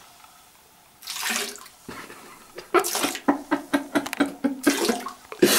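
Water splashing in a bathroom sink or tub: about a second of near quiet, then a splash, then a run of short irregular splashes.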